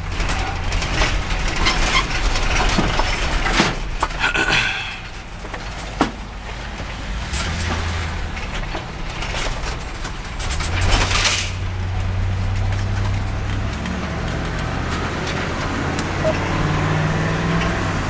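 Engine and road noise of a vehicle being driven, heard from inside the cab: a steady low engine hum under tyre and wind rush, with a single sharp click about six seconds in.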